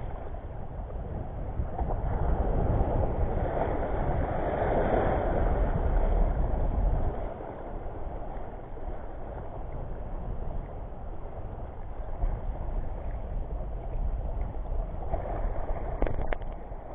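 Wind buffeting the microphone over the wash of shallow sea water, heavier for the first several seconds and easing off about seven seconds in. A couple of sharp clicks near the end.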